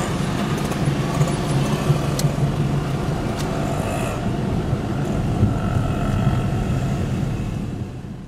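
Car running at low speed, heard from inside the cabin: a steady low engine hum over road noise, with a few faint clicks. It fades out near the end.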